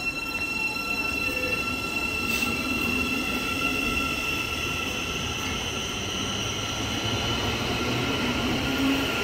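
Great Northern Class 717 electric multiple unit at the platform, close by. Its electrics give a steady high whine over a low rumble.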